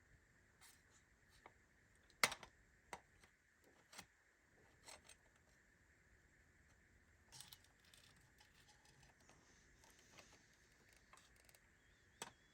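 Quiet, scattered clicks and taps of small metal parts being worked by hand, the sharpest about two seconds in: the bent tabs of a Ford Model T ignition switch being pressed back tight with a hand tool.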